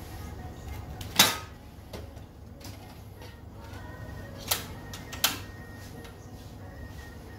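Butane canister being fitted into a portable gas stove and the burner lit: a loud metallic clack about a second in, then two sharp clicks about three-quarters of a second apart near the middle as the can locks in and the ignition knob is turned.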